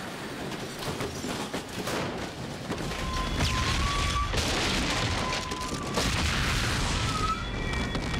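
Miniature pyrotechnic charges exploding on a model train-wreck set: several sharp bangs in the first few seconds, then a continuous deep rumble of blasts from about three seconds in.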